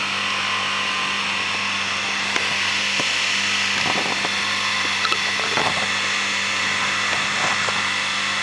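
Dishwasher pump motor running flat out while being burned out, a steady whirring hum with a hiss over it. A few short sharp crackles come in the middle.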